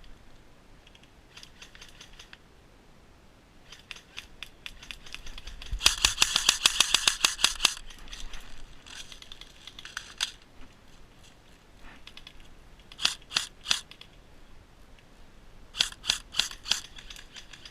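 Airsoft guns firing: a long rapid burst about six seconds in, then shorter strings of sharp snapping shots, about four a little past halfway and about six near the end.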